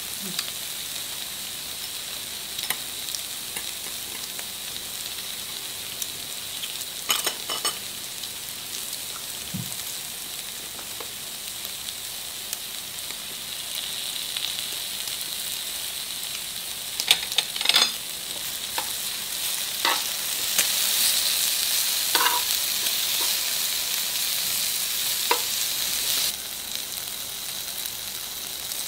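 Pork, mushrooms, rice cakes and scallions sizzling on a grill pan: a steady high hiss with scattered crackles and pops. The sizzle grows louder about twenty seconds in and eases again a few seconds later.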